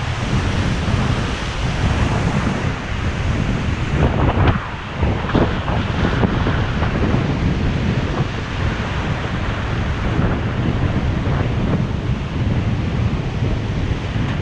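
Ocean surf breaking and washing around the legs in the shallows, with heavy wind buffeting the microphone.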